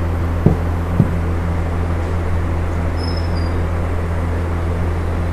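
A steady low hum, with two short knocks about half a second and one second in.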